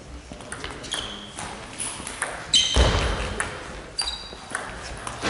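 Table tennis rally: the celluloid ball clicking back and forth off the rubber bats and the table top, with some short ringing pings and a loud thump about two and a half seconds in.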